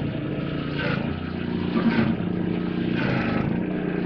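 Steady mechanical hum, like a motor running, with a few light clicks and taps.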